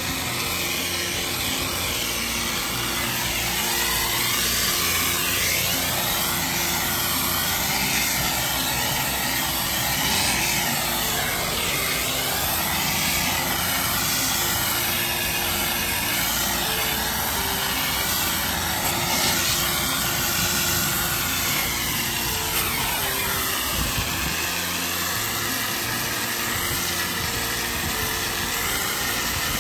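Pressure washer running: steady engine hum under the loud hiss of high-pressure water spraying onto concrete, the hiss wavering as the spray moves.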